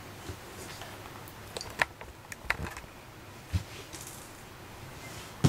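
Scattered sharp clicks and taps, then a dull thump about three and a half seconds in, as a cat paws and bites at a small toy mouse.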